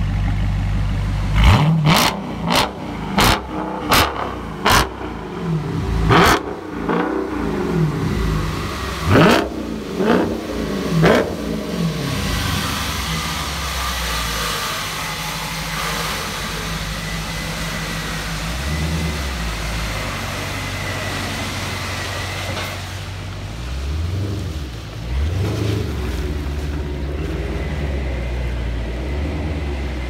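A 2016 Dodge Charger 392's 6.4-litre HEMI V8 with a muffler delete idles, then is blipped about ten times in quick succession, each rev rising and falling sharply, with a raspy edge at the top of the revs. It then settles to a steady run and gives two more revs near the end.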